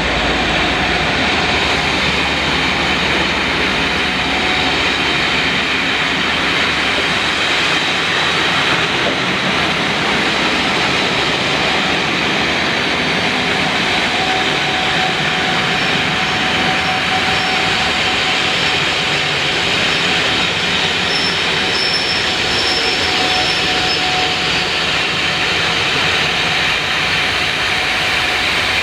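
A train running past: a steady, loud rolling noise of wheels on rail and the train's machinery, with a faint high squeal a little past the middle.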